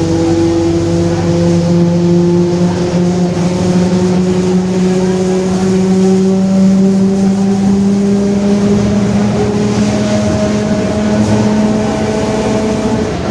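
Rear differential of a Mercedes-Benz OF-1721 BlueTec 5 city bus droning very loudly: a whine of several steady tones that climb slowly in pitch together.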